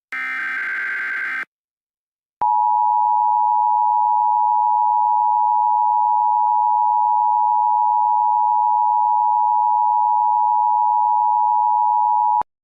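Emergency Alert System tones: a screeching SAME digital header data burst for about a second and a half, a second of silence, then the loud two-tone EAS attention signal held steady for about ten seconds before it cuts off abruptly.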